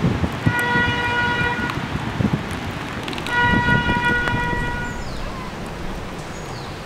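Subway train horn sounding two steady blasts, the second a little longer, about three seconds apart, over wind and track rumble.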